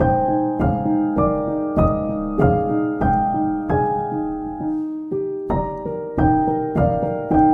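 Gentle piano background music, single notes struck at an even, unhurried pace about every half second and left to ring, over a repeated lower note.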